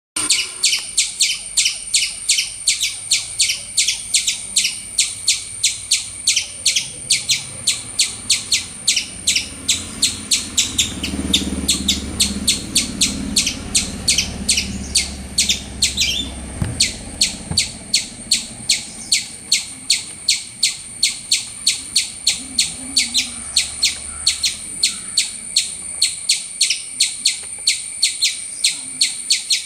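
Squirrel calling with a long run of sharp, high chirps repeated evenly at about three a second. A low rumble rises underneath for a few seconds in the middle.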